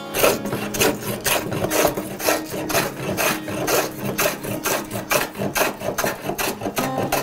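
Metal hand plane cutting shavings across the grain of a wooden bench top in quick short strokes, about two a second, taking down high spots to flatten it.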